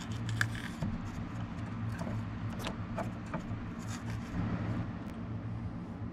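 Socket wrench on a long extension turning small bolts into a truck's dash: light scraping and scattered metal clicks from the socket, bolt and ratchet, over a steady low hum.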